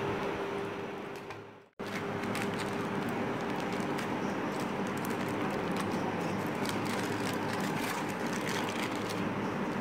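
A steady machine hum, like a fan or motor, with light crinkling and crackling of aluminium foil as it is opened and peeled back from a cake tin. The sound fades to silence just under two seconds in and comes straight back.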